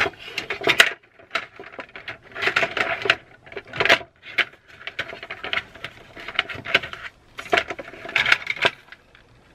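Hard black plastic trays of a Stampin' Up color caddy clattering and clicking as they are handled and fitted onto the stand's metal centre rod, in several bunches of quick knocks.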